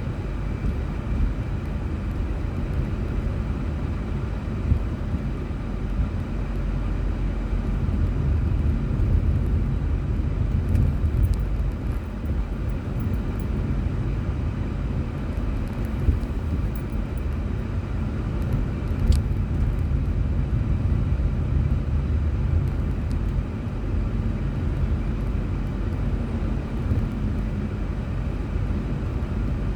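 A car driving: steady low rumble of engine and road noise, with a few faint clicks.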